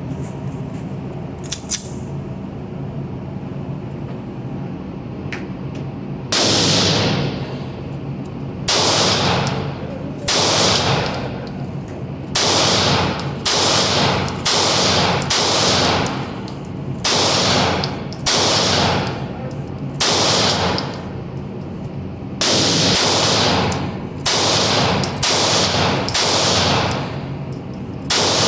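Pistol being fired at a steady pace, one shot every second or less in strings with short pauses, each shot echoing briefly. The shooting starts about six seconds in after a stretch of steady background noise.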